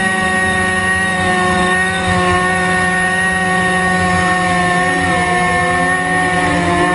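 Motorcycle engine running at steady high revs, one even drone whose pitch sags slightly near the end.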